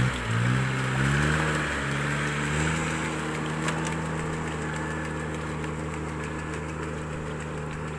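Engine of a ride-on rice transplanter running as it plants through a flooded paddy. Its pitch rises over the first two or three seconds as the machine speeds up, then holds steady, growing slightly fainter as it moves away.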